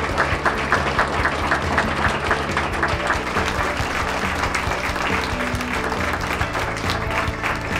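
Audience applauding over steady background music, with sharp claps at about four a second close by for the first three seconds.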